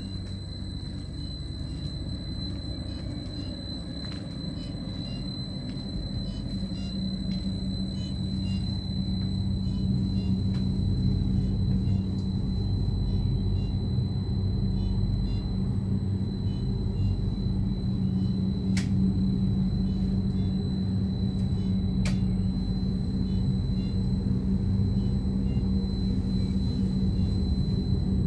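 MBC Stadler Be 4/4 electric railcar giving a steady low hum and rumble with a thin, high, constant whine, growing louder about ten seconds in. Two sharp clicks come a few seconds apart in the middle.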